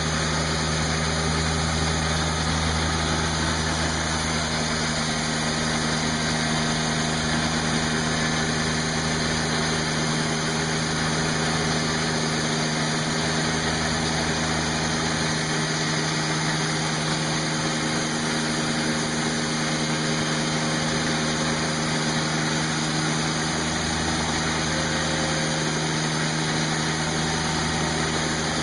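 Portable sawmill running under load: its Kubota diesel engine holds a steady drone while the tensioned blade saws through a log, with a constant hiss of cutting.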